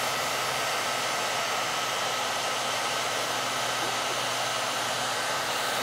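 Handheld hair dryer running steadily at full blast on its coldest setting: a constant rush of air with a faint steady high whine.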